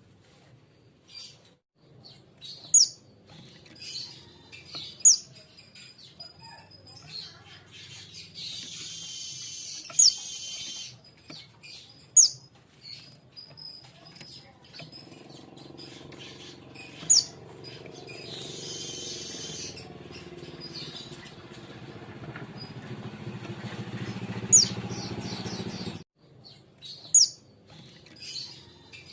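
Young king konin white-eye calling: about seven sharp, high, falling chirps spread out, and twice a longer rapid twitter. A low hum runs under the middle part and cuts off suddenly near the end.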